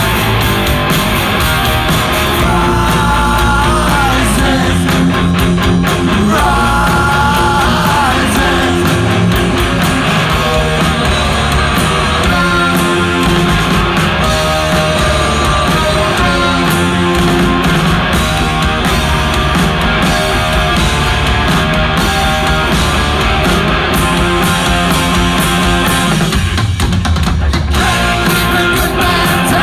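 Live punk rock band playing loud and without a break: electric guitars, bass and drums, with a singer's vocals.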